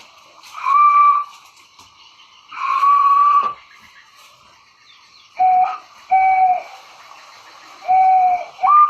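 A homemade bird call, a 3/4-inch pipe fitted with a piece of old sandal, blown in a series of hooting notes that imitate the call of the white-breasted waterhen (keruak, wak-wak). Two longer, higher hoots come first, the second one breathy. Three shorter, lower hoots follow, and a higher note rises right at the end.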